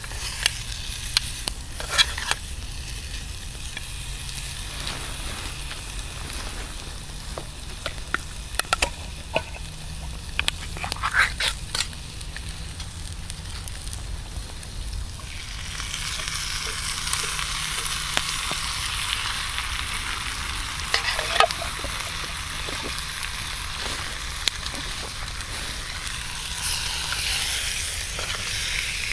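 Cubes of meat frying in a pan on campfire embers: a steady sizzle, with sharp clicks and scrapes of a utensil against the pan through the first half. About halfway through the sizzle turns louder and fuller.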